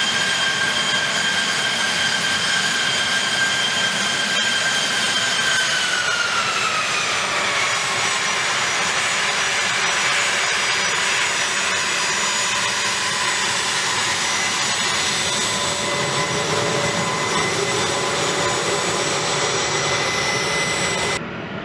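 The A-10 Thunderbolt II's twin TF34 turbofan engines run with a high whine over a jet roar. About six seconds in, the whine slides down in pitch and then holds steady lower as the engines throttle back. Near the end the sound changes abruptly and turns duller.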